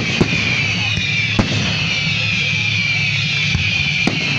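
Fireworks going off: a few sharp bangs, two close together at the start, another a little over a second in and one near the end, over a steady background din.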